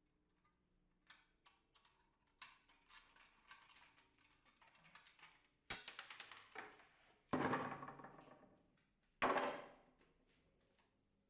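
Faint clicks and knocks of small parts being handled: a few light clicks, then a sharp knock about six seconds in and two short clattering rattles.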